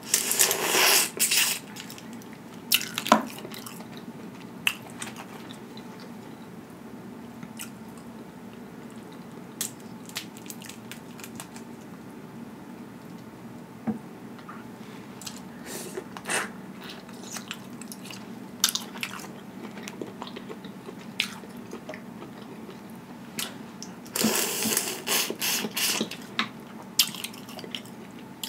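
Close-up eating of boiled crawfish: wet sucking and slurping as a crawfish head is sucked, once at the start and again near the end, with scattered sharp cracks and clicks of shells being broken and peeled in between.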